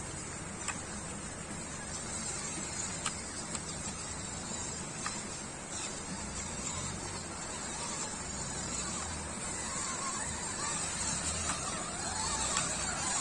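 Steady chorus of insects, with a low rumble underneath and a few faint clicks.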